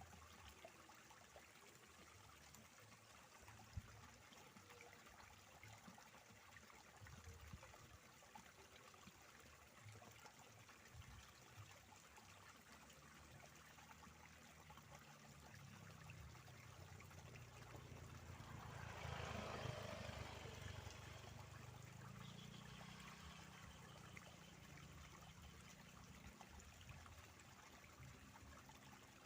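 Faint steady trickle of flowing water in an irrigation canal. A low drone builds in the second half, with a louder swell of noise about two-thirds of the way through.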